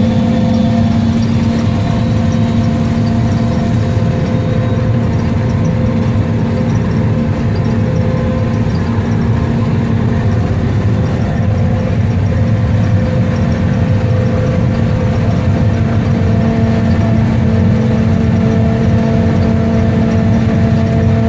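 Tractor diesel engine running steadily at constant speed, heard from the driver's seat as a loud, even drone with no change in pitch.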